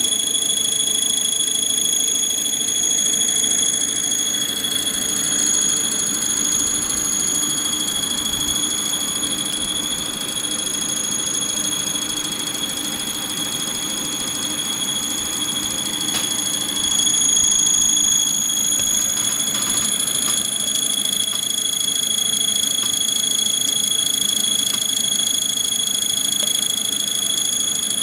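Yaskawa SGMG-13ASA AC servo motor running under test, giving a steady high-pitched whine with several overtones over a lower hum.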